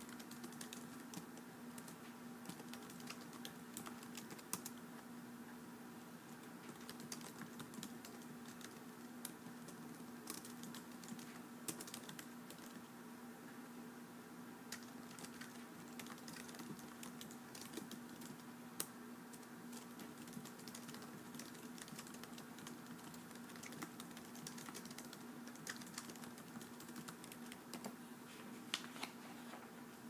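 Typing on a keyboard: a quick, irregular run of faint key clicks, over a steady low hum.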